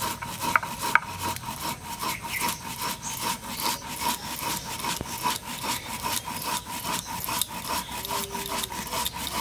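Stone roller (nora) rubbed back and forth on a stone grinding slab (shil), crushing dry-roasted carom seeds (ajwain) into coarse powder: an even, rhythmic rasping of about three strokes a second.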